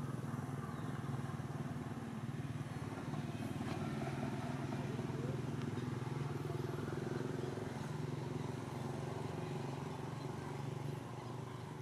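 A motor vehicle's engine idling, a steady low hum.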